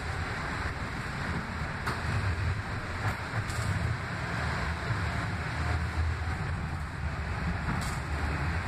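Cabin noise inside a moving Kinki Sharyo light rail vehicle: a steady low rumble of the train running on its rails, with a few faint clicks.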